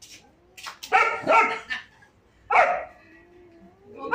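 German shepherd barking sharply three times at a cat just above it, about a second in, again shortly after, and once more at about two and a half seconds. A faint, drawn-out wavering whine runs between the last bark and the next burst.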